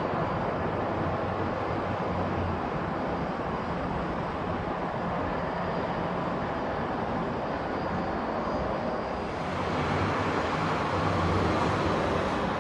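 Steady rumble of jet airliner engines at taxi power, with a faint high whine over it. The noise grows louder and brighter about ten seconds in.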